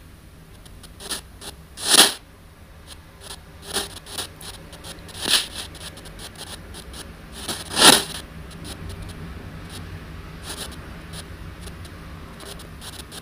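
Spirit-box style audio played through an ANC-Mini noise-reduction unit: a low steady hum broken by short bursts of hiss every couple of seconds, the loudest about two and eight seconds in.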